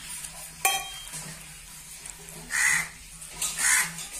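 A crow cawing twice, two harsh calls about a second apart in the second half, after a single sharp click about half a second in.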